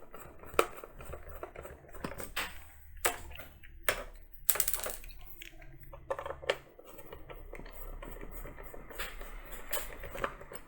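Irregular clicks, taps and scrapes of a Landmark Bluetooth speaker's casing being worked open by hand, some sharper and louder than others.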